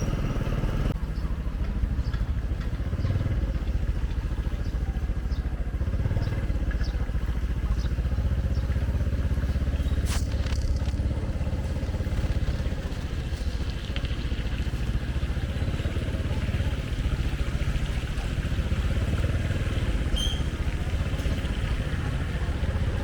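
Steady low rumble of a motor vehicle running, with a single sharp click about ten seconds in.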